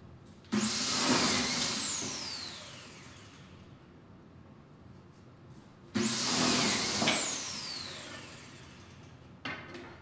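Electric pocket hole machine drilling two pocket holes, about five seconds apart. Each time the motor starts suddenly and cuts briefly, then its whine falls away as it spins down. A couple of light knocks follow near the end.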